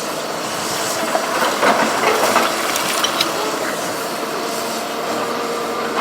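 Caterpillar 319D hydraulic excavator running, a steady machine noise with a faint steady whine, and a cluster of knocks and clicks from about one to three seconds in.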